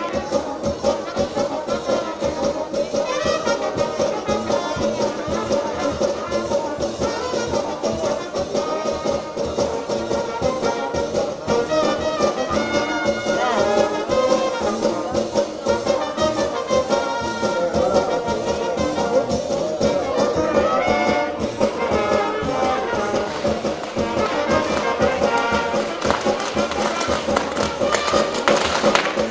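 Brass music, with trumpets and trombones playing continuously.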